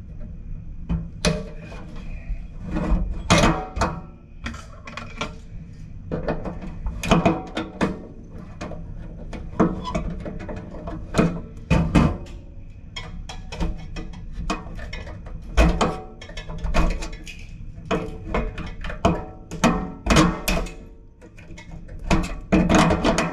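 Irregular knocks, clunks and metallic clatter as a kitchen faucet and its supply lines are handled and shifted in the sink deck during installation.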